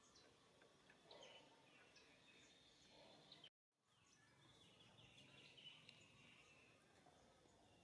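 Near silence: faint outdoor background with scattered short, high chirps, likely distant birds. The sound cuts out completely for a moment about three and a half seconds in.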